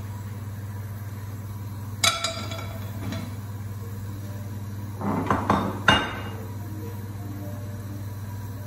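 Kitchen utensils clinking and knocking on a worktop as a knife, plate and plastic chopping board are handled: one sharp clink about two seconds in, a lighter one a second later, and a quick cluster of knocks between five and six seconds, all over a steady low hum.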